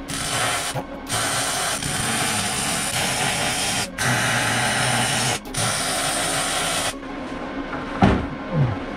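Arc welding on a steel seat mount: the weld crackles and hisses in four runs of about one to three seconds with short breaks between them, stopping about seven seconds in.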